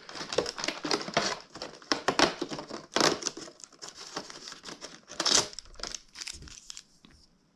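Cardboard and plastic packaging of a Pokémon advent calendar crinkling and rustling as it is handled and torn open, in quick irregular crackles that die away near the end.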